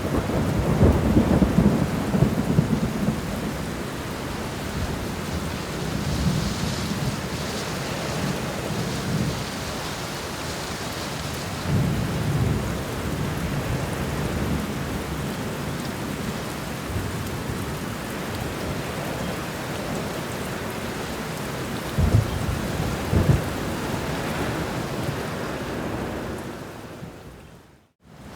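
Steady heavy rain with rolling thunder, the rumbles strongest at the start and in the middle, with two sharper claps later on. The sound fades out briefly just before the end and comes back.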